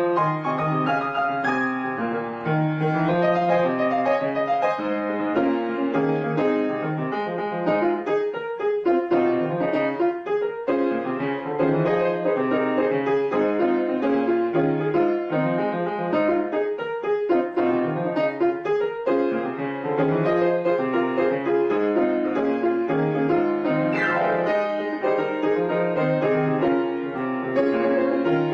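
Background piano music, with a continuous flow of notes.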